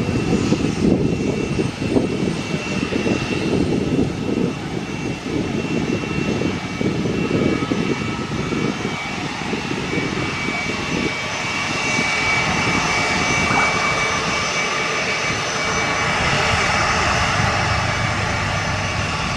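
Business jet's rear-mounted turbofan engines running at taxi power, a steady high whine over a low, uneven rumble. The whine grows louder in the second half as the jet turns toward the listener.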